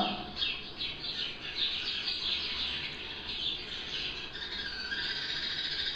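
A small songbird calling: a fast run of high chirps, several a second, each falling in pitch, growing denser and more continuous after the first second.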